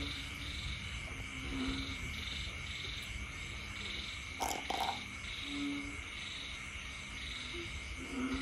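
A puppy gives two short, high yaps in quick succession about halfway through, over a steady, pulsing chorus of night creatures calling.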